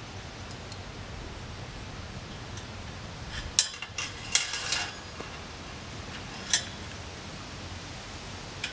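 Sharp metal clinks and taps from metal playset parts and hardware being handled and fitted at the end of a monkey-bar tube: a quick run of several about three and a half to five seconds in, and a single one a little later.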